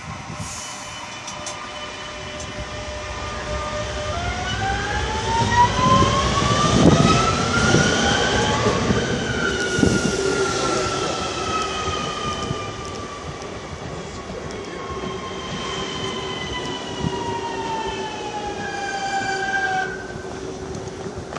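Electric metro train running underground, heard from inside the car: its traction motors whine, rising in pitch for about five seconds as it picks up speed, then falling slowly over the next ten seconds, over a steady rumble of the wheels.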